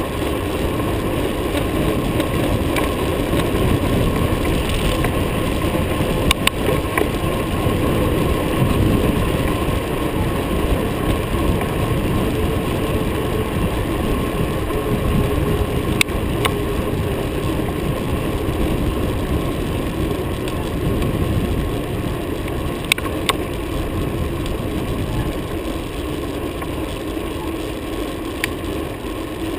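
Steady rumble of wind buffeting the microphone and tyre noise from a bicycle rolling along an asphalt road, with a few sharp clicks from the bike scattered through.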